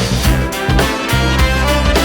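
Upbeat swing-style background music with brass and a steady beat.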